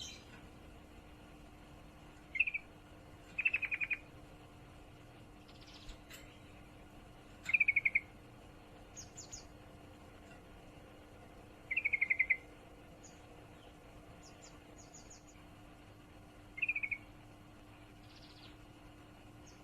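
Female yellow-vented bulbul (trucukan) giving the rapid chattering 'ngriwik' call, the call of a hen in breeding condition calling a male. It comes in five short fast trills a few seconds apart, each dropping slightly in pitch, with fainter high chirps in between over a steady low hum.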